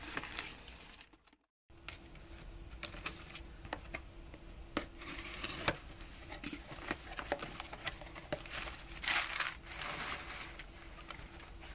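Crumpled kraft packing paper rustling and crinkling as cardboard boxes are unpacked, with scattered sharp clicks and taps from the cardboard flaps and the contents being handled. A brief dropout to silence comes about a second and a half in, and a louder burst of paper rustling comes near the end.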